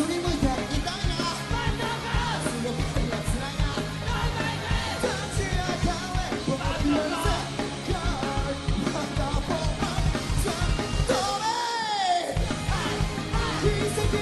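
Up-tempo Japanese rock song: drums, bass and electric guitar playing a driving beat under singing and shouted vocals. The drums and bass drop out briefly near the end, with a single falling glide, before the beat comes back in.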